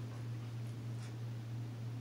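A steady low hum, with a few faint, brief scratching sounds about a second in, as the Akita's paw works at a ball on the carpet. No clear howl is heard yet.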